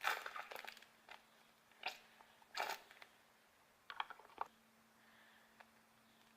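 A handful of short crackles and clicks of something being handled, bunched in the first four and a half seconds, over a faint steady hum.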